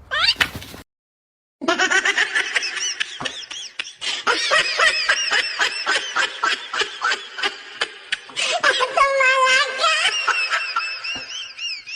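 High-pitched laughter in quick repeated bursts that runs on for about ten seconds, after a short break of silence a second or so in.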